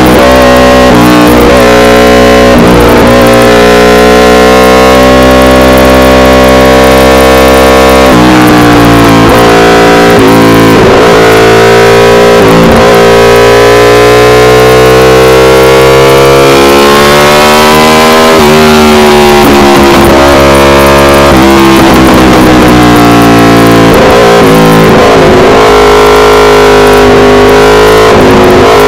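Aprilia RSV4 Factory's V4 engine through an SC-Project CRT exhaust, ridden hard on track: its note climbs steadily for several seconds at a time, then drops sharply at shifts or off-throttle, several times. The sound is loud and harshly distorted at the close-mounted microphone.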